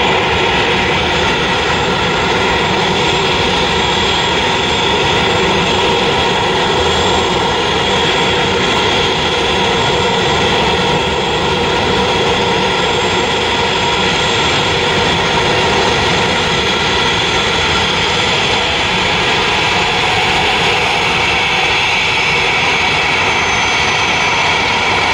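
Jet engines of a Boeing 737 running at steady low power while it taxis and lines up on the runway: a steady whine over a rushing hiss, without spooling up.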